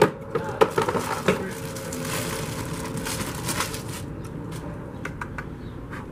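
Cone air filter being handled and worked onto the end of a metal cold-air-intake pipe. A few light knocks and clacks in the first second or so, then a stretch of rubbing and scraping, then a few scattered small clicks.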